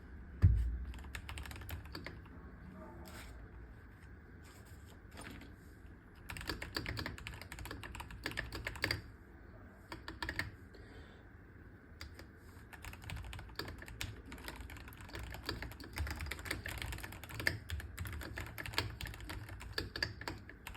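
Keychron K4 Pro mechanical keyboard with K Pro Brown tactile switches being typed on, in runs of keystrokes with short pauses. A single dull thump about half a second in is the loudest sound.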